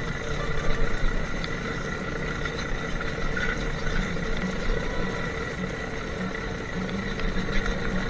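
A steady motor hum with several held tones, running evenly throughout.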